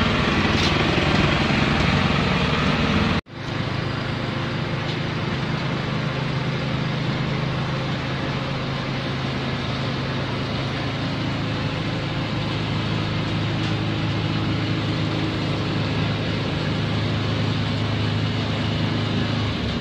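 A machine's motor running steadily with a low, even hum, cut off abruptly for an instant about three seconds in before it resumes.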